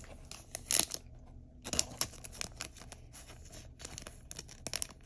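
Soft clear plastic card sleeve crinkling and rustling as a trading card is slid into it. A run of small crackles and taps, with a louder rustle about a second in.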